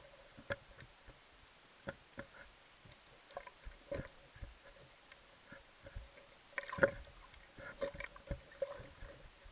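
Underwater sound with scattered, irregular clicks and knocks, a cluster of louder ones near seven seconds in, over a faint steady tone.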